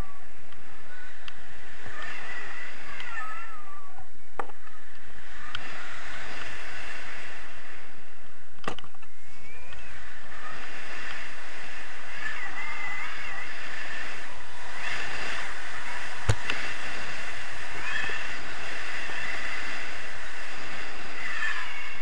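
Steady rush of wind over the camera microphone in paragliding flight, with faint tones that waver in pitch and a few sharp clicks, the sharpest about two-thirds of the way through.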